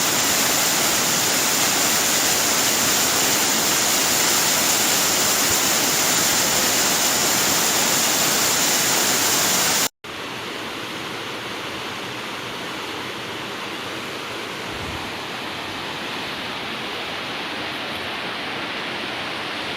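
Neer waterfall cascading down a rocky cliff: steady rushing water. About halfway through the sound cuts off and comes back quieter and duller.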